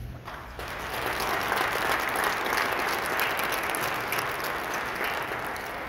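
Audience applauding: the clapping starts a moment in, swells to a full round within about a second, and thins out near the end.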